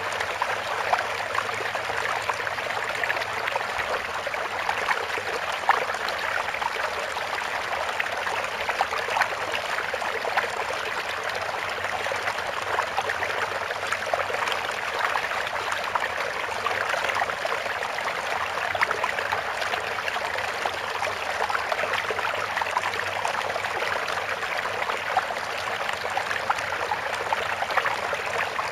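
Steady sound of running water, an even hiss with a fine crackle.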